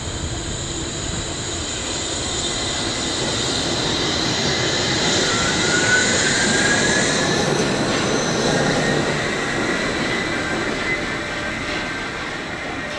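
Wuppertal Schwebebahn suspended monorail car passing overhead: steel wheels running on the overhead rail with the electric drive whining. It grows louder to a peak about six seconds in, with a rising whine in the middle, then fades as it moves off.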